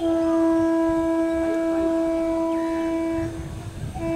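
WAG-5 electric locomotive's horn sounding one long steady blast that stops about three seconds in, with the low rumble of the train underneath, then a second blast starting near the end.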